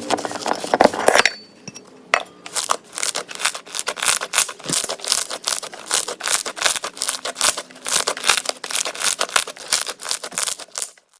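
Slime being squeezed and pressed by hand, giving a dense run of crunchy crackles and pops, with a short lull about a second in.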